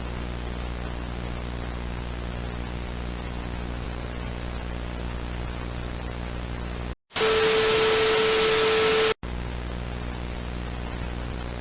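Dead-air broadcast static: steady hiss over a low electrical hum. About seven seconds in it drops out for an instant, then a much louder burst of static with a steady tone lasts about two seconds. It cuts off suddenly, and the hum and hiss resume.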